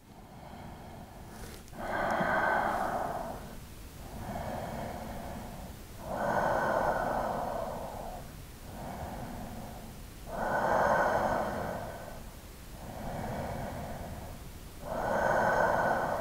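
A man's slow, deep breathing, audible close to the microphone, steady and even. There are about four full breath cycles, each a softer breath followed by a louder one, roughly every four seconds.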